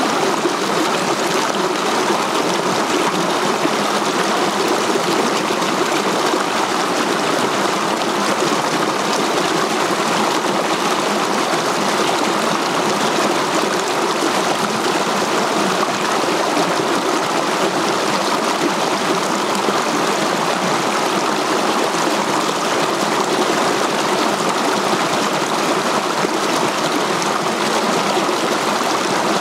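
Rocky mountain stream rushing over boulders in small cascades: a steady, unchanging rush of water.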